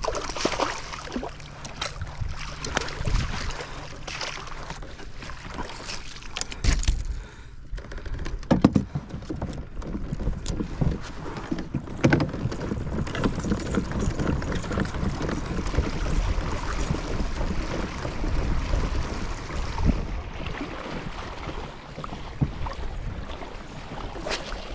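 Water splashing and dripping with scattered knocks and rattles of a landing net and gear on a plastic kayak as a netted striped bass is lifted from the water and laid on the deck. A low rumble of wind on the microphone runs under it.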